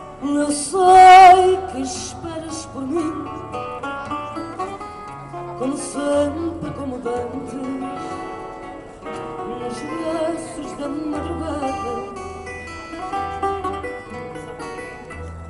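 A woman singing a Portuguese song live into a microphone over plucked acoustic guitar. About a second in she holds a loud note with wide vibrato. The guitar carries on between her phrases.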